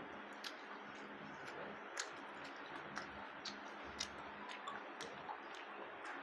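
Faint ticking in a quiet room: sharp ticks about once a second, with a few softer clicks between them.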